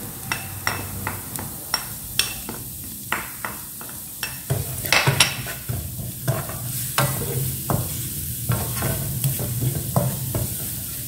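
Minced lemongrass, garlic and shallot sizzling in hot oil in a nonstick frying pan, stirred with a wooden spatula that scrapes and taps against the pan many times, irregularly. A low steady hum runs underneath.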